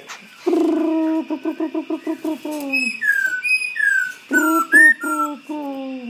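Caged songbird calling: a rapid, pulsing low trill, then a string of high whistled notes that each slide downward, then another pulsing trill that drops in pitch near the end.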